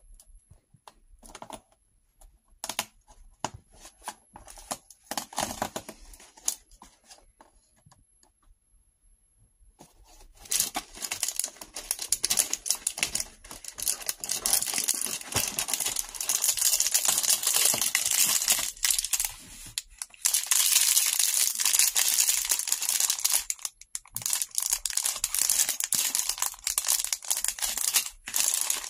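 Cardboard door of a LEGO advent calendar being pressed and pried open: scattered light clicks and crackles at first, then, about ten seconds in, a long stretch of dense tearing and crinkling as the door rips free and the clear plastic bag of pieces inside is handled.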